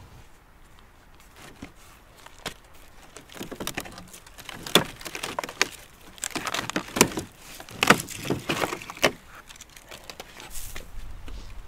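A steer skull with horns and dried hide being pulled and lifted off rocky gravel: irregular scrapes and sharp knocks of bone, horn and hide against stones, thickest in the middle of the stretch.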